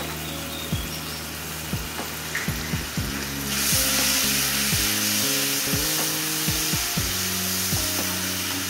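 Chilli-garlic masala with freshly added soy sauce sizzling in hot oil in a wok while it is stirred with a wooden spatula; the sizzle gets louder about three and a half seconds in.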